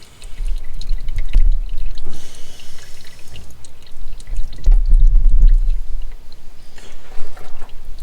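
Old gearbox oil from an Iveco Daily's 5-speed manual gearbox pouring and dripping from the drain hole into a container, with a low rumble that swells twice.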